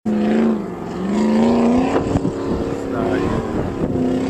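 Off-road race vehicle's engine running, its pitch dipping about half a second in and then climbing as it revs up, settling into a steady drone.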